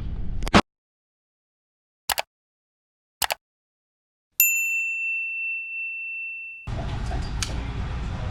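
A few short clicks in silence, then a single high ringing ding that starts sharply and fades over about two seconds.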